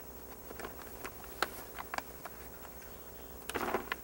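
Zigzag wiggle wire being pressed by hand into a metal channel lock over greenhouse plastic: a scatter of light sharp clicks, then a brief rustle near the end. A faint steady hum runs underneath.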